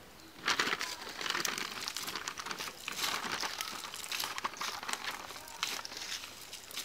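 Cast net and dry leaf litter rustling and crackling as the net is shaken out and dragged over the leaves, in a dense, uneven string of rustles starting about half a second in.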